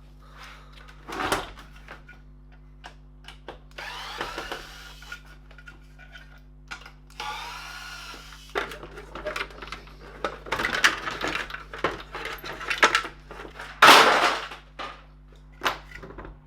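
Metal and plastic parts of a dehumidifier being handled and pulled apart by hand: scraping and rattling, then a run of knocks and clicks, the loudest knock near the end, over a faint steady hum.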